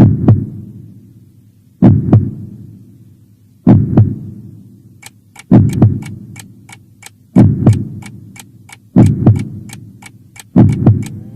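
Heartbeat sound effect: a steady lub-dub double thump about every two seconds. A fast clock ticking joins in about halfway.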